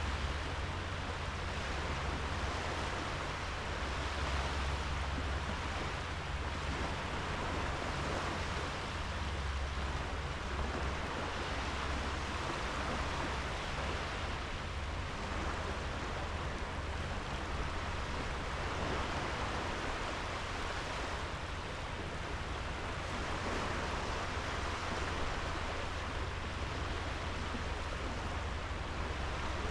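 Small sea waves washing onto a sandy beach: a steady hiss of surf that swells and eases every few seconds, with a low rumble underneath.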